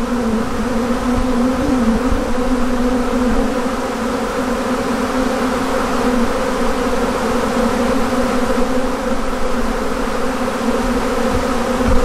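Steady, loud buzzing hum of a huge honey bee swarm, thousands of bees flying and crawling around a hive box as the swarm marches in.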